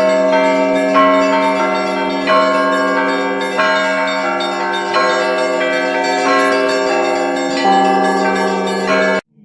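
A set of eight church bells ringing together in a trial peal. Many overlapping tones sound, with a strong new stroke a little over a second apart. The ringing cuts off abruptly near the end.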